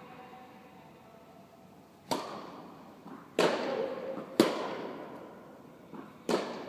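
Tennis rally: a tennis ball struck by rackets with sharp pops, four loud hits a second or two apart and a couple of fainter bounces in between, each echoing on in the reverberant indoor tennis hall.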